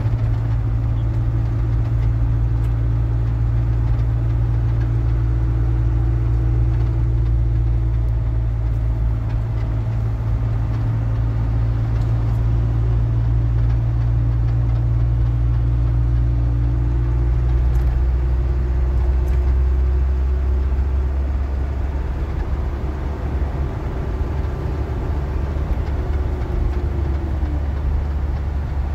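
A vehicle's engine running at low road speed, heard from inside the cab as a deep, steady hum. A fainter, higher tone above it fades out about two-thirds of the way through.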